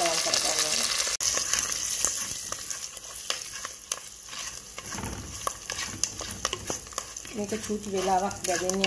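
Oil sizzling in a clay pot while chilli flakes, curry leaves and sugar are stirred with a spatula, with small clicks and scrapes from the spatula. The sizzle is loudest in the first couple of seconds and then dies down.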